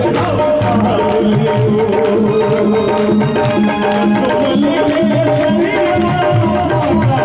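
Live Rajasthani devotional bhajan music played through loudspeakers: a melody instrument holding steady notes over a brisk hand-drum beat.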